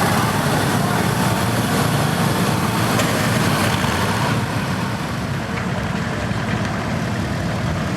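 Farm tractor engine running loud and steady, easing off slightly about halfway through.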